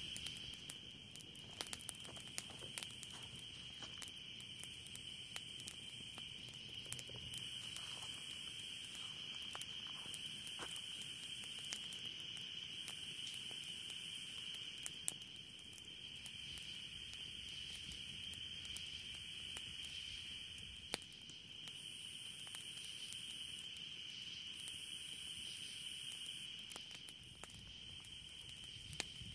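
Night insects trilling in one steady high-pitched drone, with a second, higher trill coming and going. A wood campfire crackles over it with scattered sharp pops.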